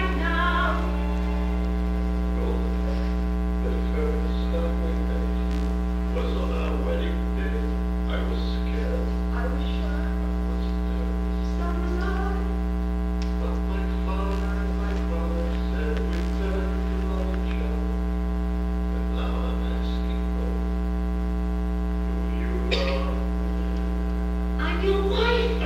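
Loud, steady electrical mains hum, with faint film dialogue underneath it. A louder voice comes in near the end.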